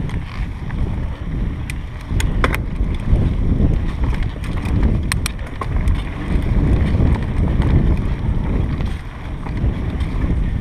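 Mountain bike descending dirt singletrack: steady wind rumble on the microphone over the tyres rolling on the trail, with a few sharp clicks and rattles from the bike, a pair about two seconds in and another pair about five seconds in.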